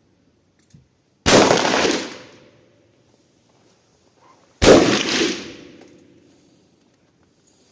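Two shots from an IZH-27 over-under shotgun, about three seconds apart. Each is a sharp report followed by about a second of echo dying away.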